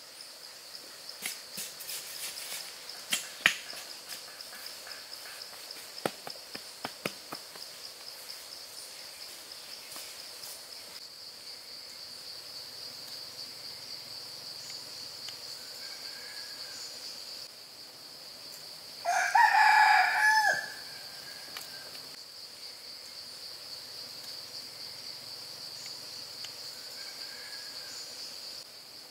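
A rooster crows once, loud and about a second and a half long, a little before two-thirds of the way through. Under it runs a steady, high, pulsing insect drone, and a few sharp clicks and taps come in the first seven seconds.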